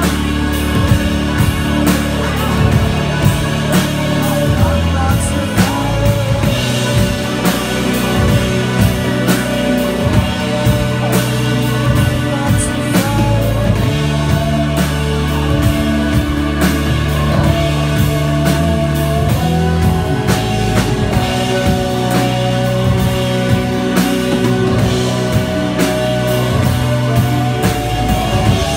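Live rock band playing an instrumental stretch: a drum kit keeps a steady beat under held synthesizer and keyboard chords and long sustained bass notes.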